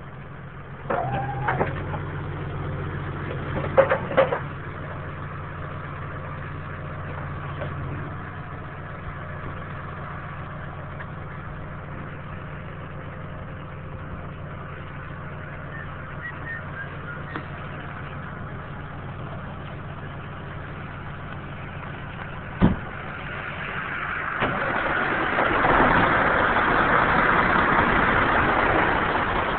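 Heavy engine of a forestry skidder idling steadily, with a few clatters in the first few seconds and one sharp knock about 23 seconds in. Near the end a louder rushing noise swells up for several seconds over the idle.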